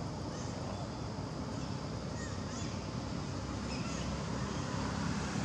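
Outdoor forest ambience: a steady low rumble with a few faint, short high-pitched calls scattered through it.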